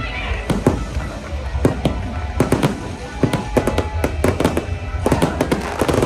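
Fireworks display: aerial shells bursting in quick succession, sharp bangs and crackles coming thick and fast, most crowded near the end, over a low rumble.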